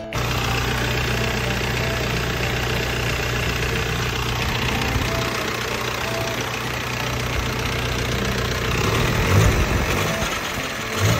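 Isuzu Rodeo pickup's engine idling steadily, with a couple of brief louder surges near the end.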